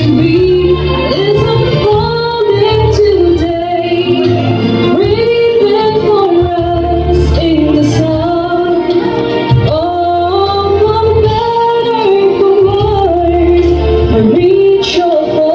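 A song with a woman singing a melody in long held notes over a steady bass accompaniment.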